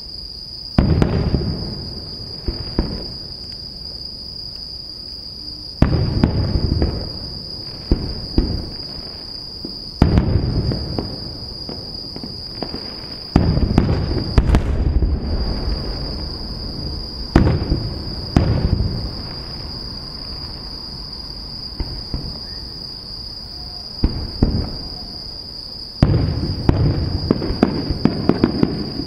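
Aerial firework shells bursting overhead: a series of sharp booms, each trailing off in a rumbling echo, coming in clusters with lulls of a few seconds between them. A steady high chirring of night insects continues underneath.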